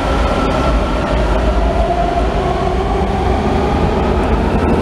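Washington D.C. Metro subway train leaving an underground station: a steady rumble of wheels on the rails with a faint whine above it as the cars pass and draw away.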